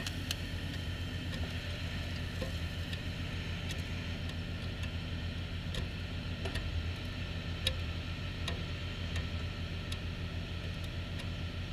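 Flash butt welding machine idling just after a weld, with a steady low hum and a fast flutter to it, and faint irregular ticks now and then.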